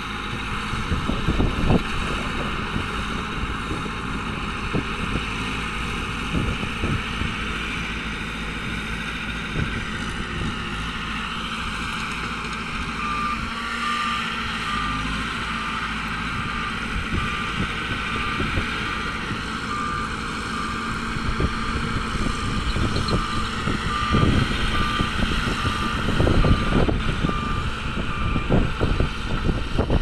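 Small crawler bulldozer's diesel engine running steadily under load while a reversing alarm beeps about once a second from about halfway through. Heavier, gusty low noise joins in the last few seconds.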